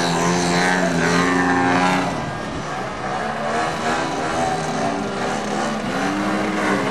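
A radio-controlled aerobatic airplane's engine and propeller running hard, pitch rising and falling as the throttle is worked through hovering and tumbling manoeuvres. It is loudest for the first couple of seconds.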